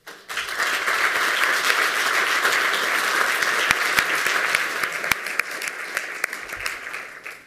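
Audience applauding, starting right away and dying away near the end.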